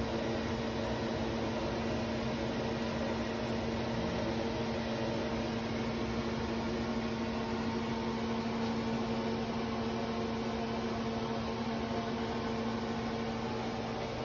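A kitchen appliance's fan motor humming steadily, with a low, even drone and a constant whir.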